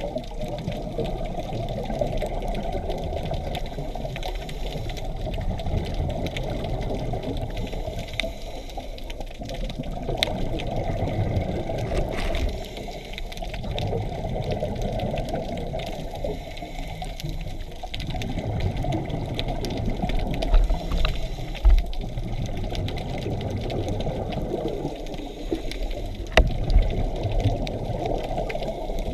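Scuba regulator breathing picked up underwater: exhaled bubbles gurgling out in waves with brief lulls between breaths, heard muffled, with a few sharp clicks in the second half.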